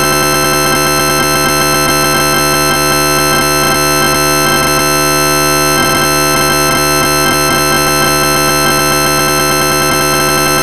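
A MIDI synthesizer sounding a massive C major chord (C, E and G across the keyboard) as a loud, unchanging wall of sound, the same notes retriggered rapidly so the held chord flickers and buzzes.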